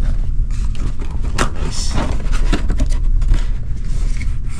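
Cardboard packaging being handled as a laptop is taken out of its box: scattered short scrapes, knocks and rustles of cardboard over a steady low rumble.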